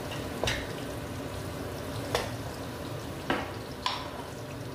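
Garlic and dried fish frying in oil and butter in a nonstick wok, a steady sizzle, while a wooden spatula stirs and knocks against the pan about four times.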